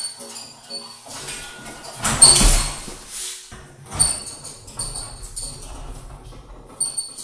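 Metaltech steel rolling scaffold being climbed down and then pushed across a concrete floor: metal frames clanking and rattling with short ringing tones, a louder clatter about two seconds in, and a low rumble of the casters rolling in the second half.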